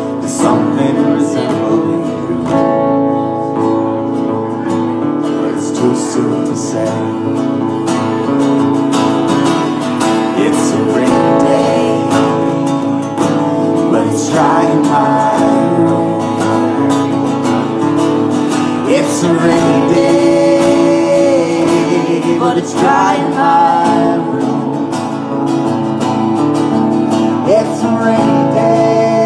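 Live acoustic music: acoustic guitars strummed while the performers sing.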